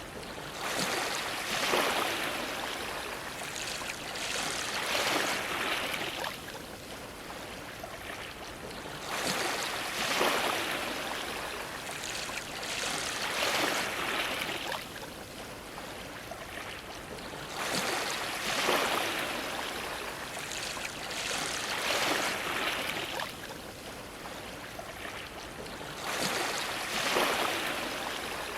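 Ocean waves washing against a dock, the water swelling up and falling back every few seconds over a steady hiss of surf.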